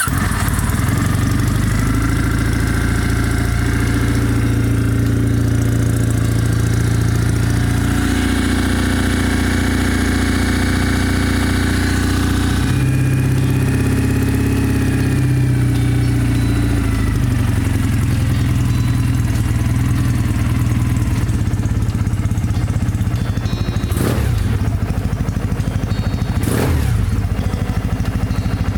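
Kawasaki W650's air-cooled parallel-twin engine, fitted with an aftermarket full exhaust, idling steadily just after being started on fresh oil following an oil change. Its idle speed wavers a little midway. Two sharp knocks a few seconds apart come near the end.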